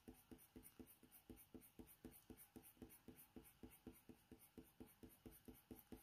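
Faber-Castell Polychromos coloured pencil stroking back and forth on hot-press watercolour paper, laying down a base layer in short, even, faint strokes, about five a second.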